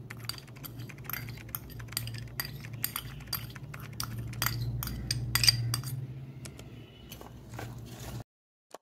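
Utensil clinking and scraping against a stainless steel bowl while kasundi is spread over cut guava pieces: many small, irregular clicks over a low steady hum, stopping suddenly near the end.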